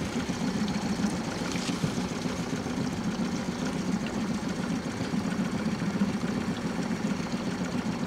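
Mercury outboard motor running steadily at slow trolling speed: a constant low hum with no change in revs.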